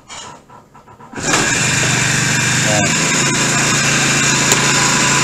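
Small gasoline outboard motor on a kayak mount, pull-started, catching about a second in and then running steadily at a fast idle.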